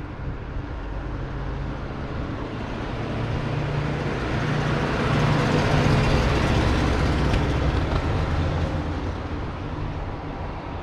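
A 1936 Ford pickup's 221 cubic-inch flathead V8 running as the truck drives past. The low engine note grows louder as it approaches, peaks about halfway through as it passes, and fades as it pulls away.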